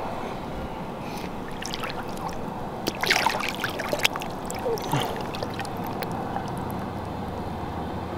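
Water sloshing and splashing around a large flathead catfish held by its lower jaw in the river at the bank's edge. A cluster of splashes comes about three to four seconds in, with smaller ones around it.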